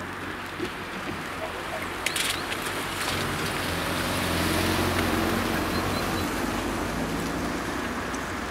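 A Honda Civic saloon driving over a level crossing and past at low speed, its engine hum and tyre noise swelling to a peak about halfway through and then fading. A few sharp clacks about two seconds in as its wheels cross the rails.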